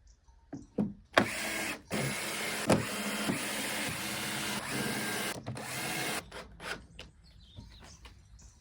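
Power drill driving screws into pallet wood: a steady motor whine that runs for about five seconds, stopping briefly twice, with a few knocks of handling before and after.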